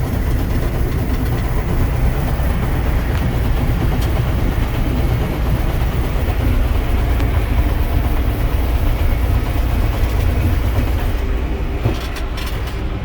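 Heavy farm machinery's diesel engine running steadily under load, a loud low drone. Near the end the hiss eases and a few short clicks or knocks are heard.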